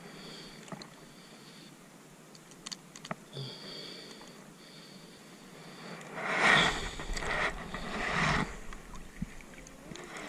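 Seawater splashing and sloshing around a wading angler and a landing net, in two loud surges about six and eight seconds in, after a quieter stretch with a faint high whine.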